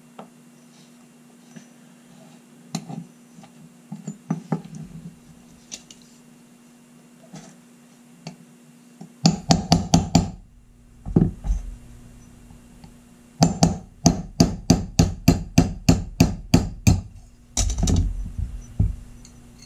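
Small hammer tapping a punch against the steel frame of an old top-break revolver: sharp metal taps in quick runs, the longest about four a second, knocking out a pin. A few light handling clicks come before the tapping starts.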